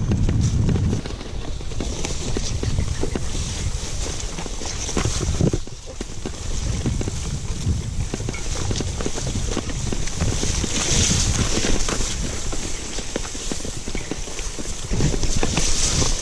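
Bicycle riding over a rough, overgrown dirt trail: wind rushing on the microphone, with steady rattling and knocking of the bike and its loaded bags over bumps. Tall grass brushes against the handlebars, with louder swishing about ten seconds in and near the end.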